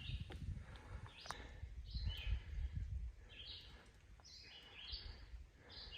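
A songbird calling in a series of short chirps that slide down in pitch, about one a second, over a low, uneven rumble.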